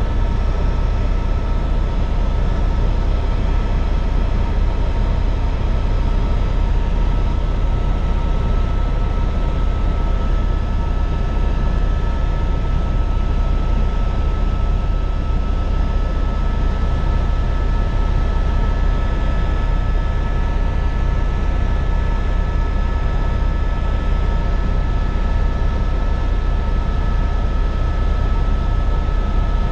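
Helicopter in flight heard from inside the cabin: a loud, steady low rumble of rotor and engine, with a steady high engine whine over it.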